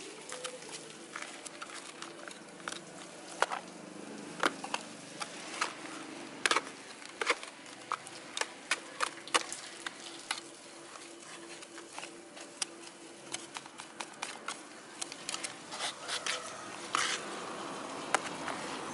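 Potting soil mixed with rice husks being stirred and scooped in a plastic basin with a small hand trowel: irregular gritty scrapes and sharp clicks, several a second, as the tool digs through the mix and knocks the basin and the stones in it.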